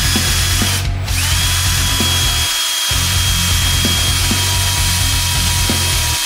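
Cordless drill running as it bores a pilot hole into the centre of a Subaru EJ257 cam gear, a step in drilling the gear out to free it. The motor whine stops briefly about a second in, then spins back up and runs steadily. Background music plays underneath.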